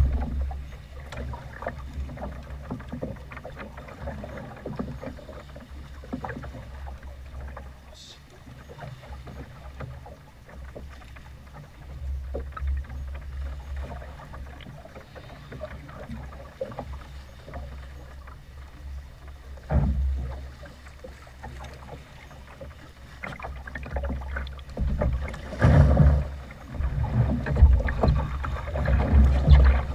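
Wind buffeting the microphone and choppy water sloshing and slapping against a small boat's hull, a constant low rumble that swells in gusts about two-thirds of the way in and again near the end.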